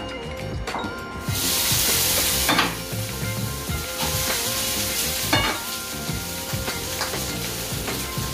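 Sisig sizzling as it is spooned into a hot, buttered pan used as a makeshift sizzling plate. The sizzle starts about a second in and is loudest for the first second or so, then goes on more quietly, with a couple of clanks of a metal utensil against the pan.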